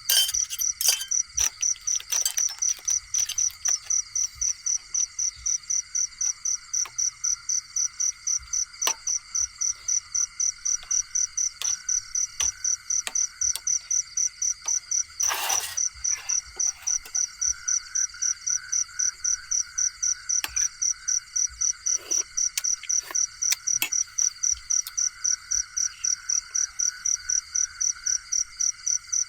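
Night chorus of crickets and other insects: one loud, high chirping pulses about three times a second over steady higher and lower trills. Scattered sharp clicks, and a short rustling burst about halfway through.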